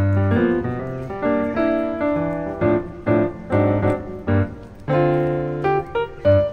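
Background piano music: a melody over chords and a low bass note, each note struck and fading.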